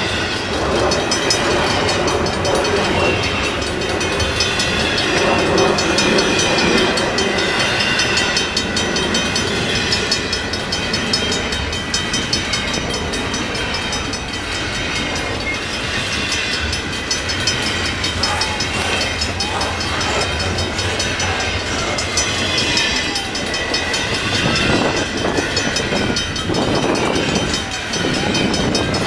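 Long CN intermodal stack train rolling past, a steady, unbroken noise of wheels on rails.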